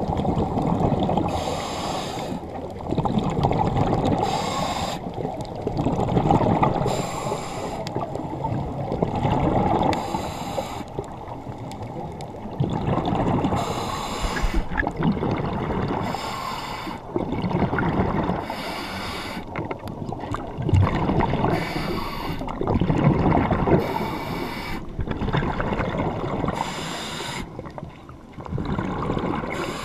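Scuba diver breathing through a regulator underwater: a short hiss on each inhalation every two to three seconds, between longer stretches of bubbling, rumbling exhaled air.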